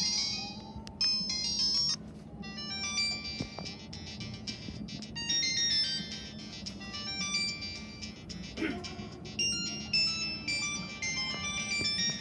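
Samsung GT-E1150 feature phone playing a polyphonic ringtone melody of quick notes through its small built-in speaker, thin and high with little bass. The tune breaks off about two seconds in, and another melody starts.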